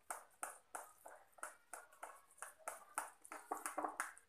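A spoon stirring thick semolina (rava) idli batter in a ceramic bowl, making soft, rhythmic scraping strokes about three a second that come faster near the end. The batter has just been mixed with baking soda and is frothing up.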